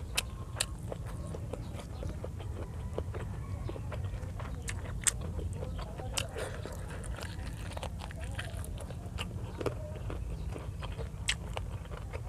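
Mouth sounds of eating chicken neck adobo by hand: chewing and biting, with many scattered sharp clicks at irregular intervals over a low steady hum.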